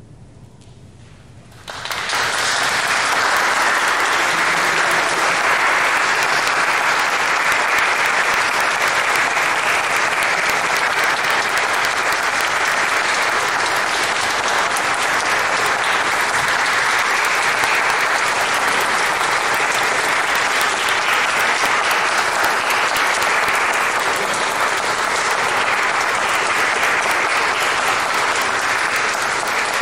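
Audience applauding steadily at the close of a live chamber performance, starting suddenly about two seconds in after a brief hush, with the applause echoing in a large church.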